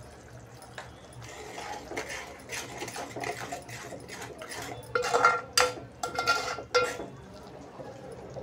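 A steel spoon stirring thick, wet gravy in a metal pot, scraping and sloshing. About five seconds in, the spoon knocks against the pot several times in quick succession, each clink ringing briefly.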